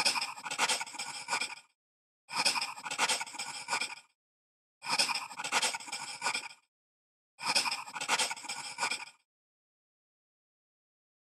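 Pencil scratching on paper in four bursts of writing, each about a second and a half long with short gaps between. The bursts look alike, like the same scribble repeated.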